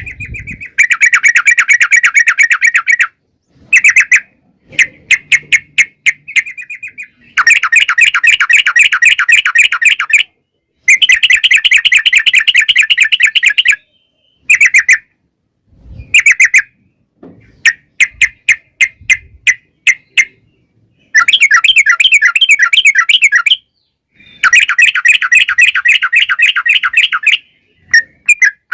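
Yellow-vented bulbul (trucukan) singing long rapid rattling trills, repeated notes in bouts of one to three seconds with short pauses between them.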